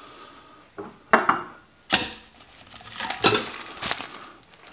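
Stainless steel brewing-kettle parts being handled and set down: a series of sharp metallic clinks and knocks, the loudest about two seconds in. Near the end, rustling as a plastic-sleeved manual is pulled out of the kettle.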